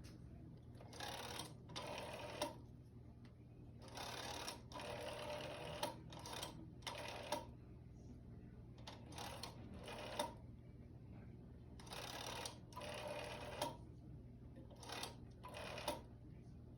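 1960s rotary telephone being dialled. Each digit is a short whirring run of clicks as the finger wheel spins back, and a series of them comes in groups with short pauses between while a phone number is dialled.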